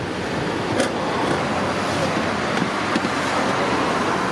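Steady roadside traffic noise, with one short click a little under a second in.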